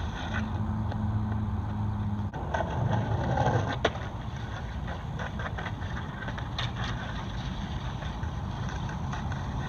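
Steady low hum of a vehicle engine running nearby, with a single sharp click a little under four seconds in.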